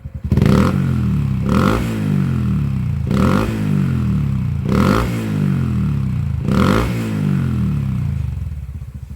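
Honda Dax 125's single-cylinder engine through an OUTEX aftermarket exhaust with a straight-through silencer, revved in five sharp throttle blips, each falling back in pitch, then dropping back to idle near the end.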